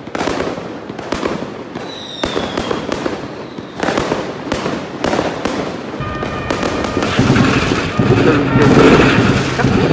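War-footage gunfire: a rapid, irregular string of sharp shot cracks and bangs, with a short falling whistle about two seconds in. From about six seconds in, a steady low drone with a few held tones comes in under the shots and grows louder.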